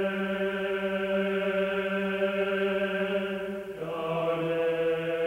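Background music: a long held droning chord that steps down to a lower note just under four seconds in.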